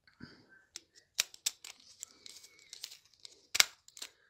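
Screwdriver turning a terminal screw on a push-button switch's contact block to clamp a wire: a run of small sharp clicks and scratches of metal and plastic, the loudest about three and a half seconds in.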